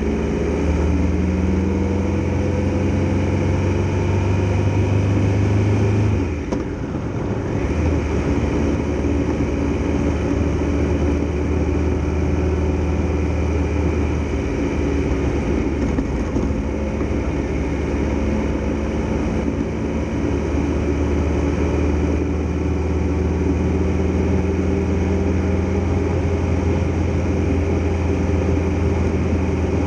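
Triumph Tiger Explorer XRx motorcycle's three-cylinder engine running steadily under way. Its low engine note breaks off briefly about six seconds in and comes back a second or so later.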